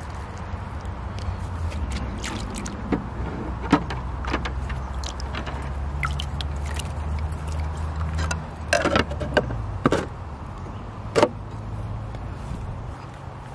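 Pool filter pump running with a steady low hum while the filter is backwashed, with a few scattered clicks and knocks from handling at the skimmer.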